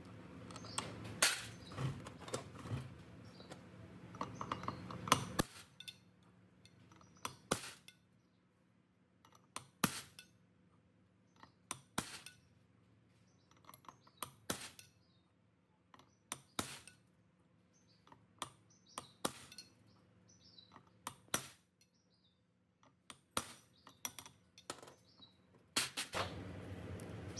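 Hard clinks and knocks of metal parts being handled, each sharp and separate, coming every second or two. They sit over a rustling, scraping noise for the first five seconds, and that noise comes back near the end.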